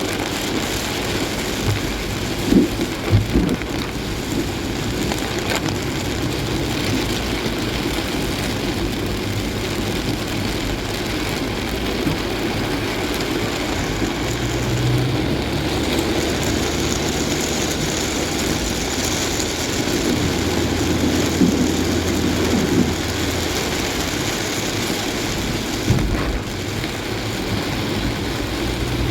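Car driving in heavy rain: steady rain and road noise over a low engine hum, with a few short thumps about three seconds in and again near the end.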